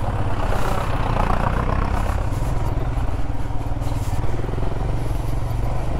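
Motorcycle engine running steadily under way, with wind and road noise over the microphone.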